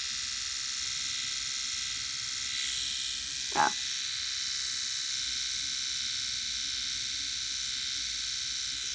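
Small battery-powered electric eyebrow trimmer running with a steady, high-pitched buzz as it is moved over the brow.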